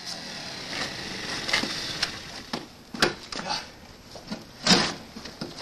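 A few scattered knocks and clunks from a motor scooter being handled with its engine off as the rider climbs off, the loudest near the end, over a steady camcorder hiss.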